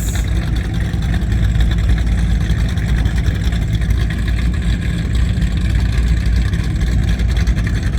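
Steady low rumble of high-performance powerboat engines running at low speed.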